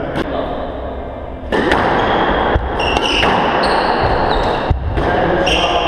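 A squash rally on a hardwood court: sharp smacks of the ball off racquets and walls every second or so, from about a second and a half in, with short squeaks of court shoes on the wooden floor.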